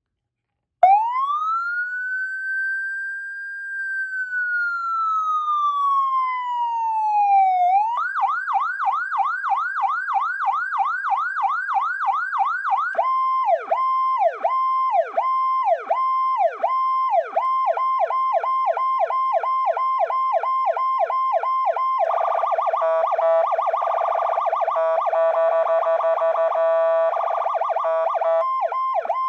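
Powercall 86M siren running through its tones. It starts with one slow wail rising and falling, then a fast yelp from about eight seconds in, then a steady tone broken by quick downward dips. Near the end comes a harsher two-tone section before the dipping tone returns.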